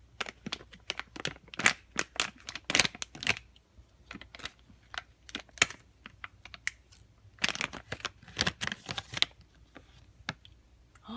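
Crinkly blind-bag packaging being torn open and handled, in two bursts of sharp rustling and crackling with scattered clicks between them.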